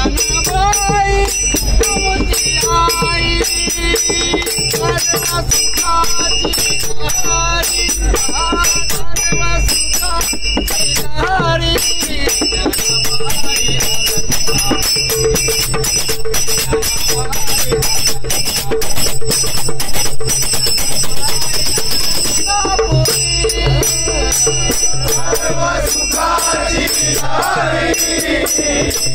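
Men singing a Marathi abhang (devotional bhajan) together, with small brass hand cymbals (taal) clashing and ringing in a steady beat. The voices drop back for a stretch in the middle while the cymbals keep going, then the singing returns near the end.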